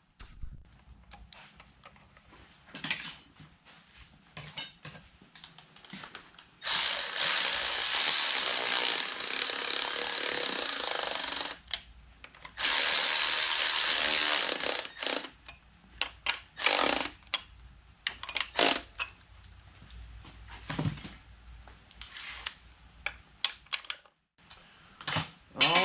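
Cordless ratchet running in bursts, two of them several seconds long, as the throttle body is bolted back onto the intake, with clicks and knocks of hand tools and parts between bursts.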